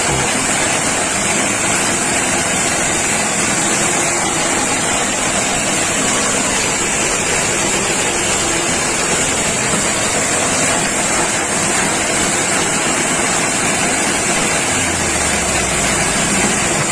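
Multi-purpose forage chopper machine running steadily, a continuous mechanical noise.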